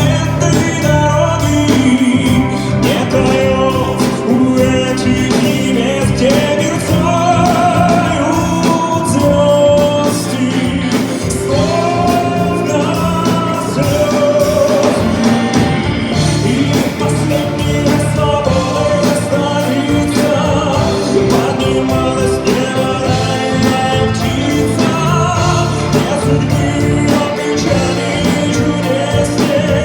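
A male singer performing a Russian-language song over music: his sung melody glides and sustains above steady instrumental accompaniment.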